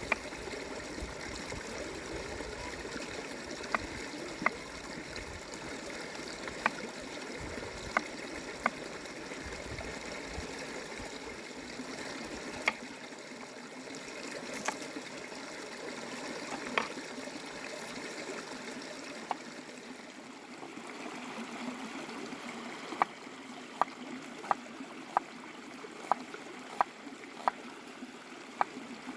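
Steady trickling of a small stream, with sharp taps scattered over it; in the last few seconds the taps come in an even run, about three every two seconds.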